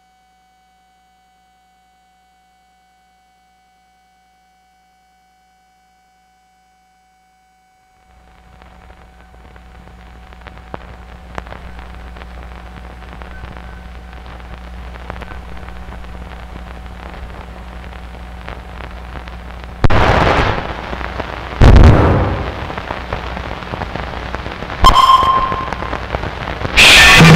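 Experimental noise music. At first there is near silence with only a faint steady high tone. About eight seconds in, a low hum and crackling noise fade in and slowly build, and in the last several seconds four loud, sudden blasts of harsh noise break through.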